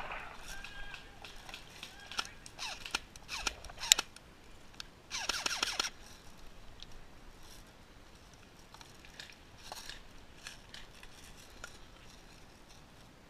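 Dry bracken, twigs and pine litter crackling and snapping under footsteps and a body moving low through the undergrowth, with a few sharp snaps in the first four seconds. A short, louder rasping sound comes about five seconds in, then fainter rustling.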